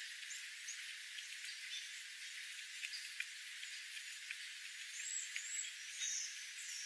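Jays pecking at seed on gravel: scattered light clicks over a steady hiss, with a few short high chirps about five to six and a half seconds in.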